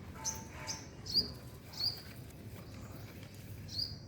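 Birds chirping: about five short, high, sharp chirps at irregular intervals.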